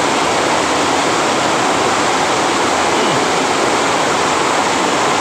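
Water from a small waterfall rushing steadily, a loud, even wash of noise.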